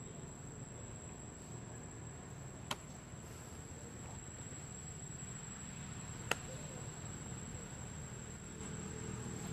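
Outdoor ambience with a steady, high-pitched insect trill and a low background hum, broken by two sharp clicks, one near three seconds in and another about three and a half seconds later.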